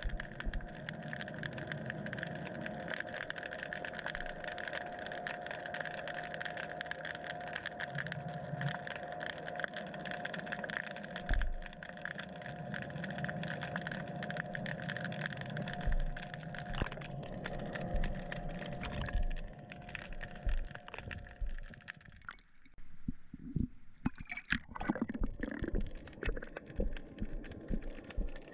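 Underwater sound: a steady mechanical hum with one constant tone over a crackling hiss, with a few low knocks. About 22 seconds in the hum stops, leaving scattered clicks and knocks.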